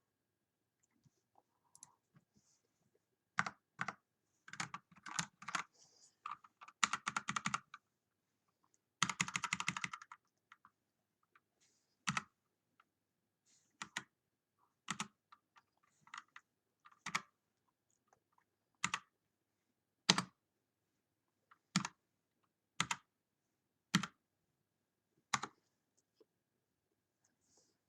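Havit 65% mechanical keyboard being typed on: short runs of keystrokes, then a fast flurry about nine seconds in. After that come single key presses, about one a second, each a sharp click.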